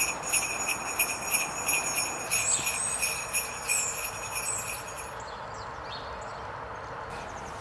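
Sleigh bells jingling in an even shaking rhythm of about three shakes a second, stopping about five seconds in. A steady background hiss runs underneath.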